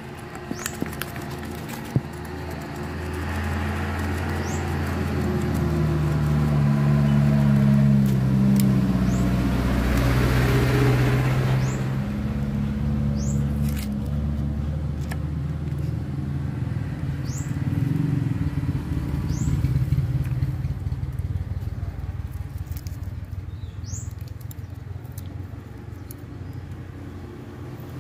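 A petrol engine running, its pitch drifting up and down and its loudness swelling to a peak about eight seconds in and again near twenty seconds. Short high chirps sound now and then over it.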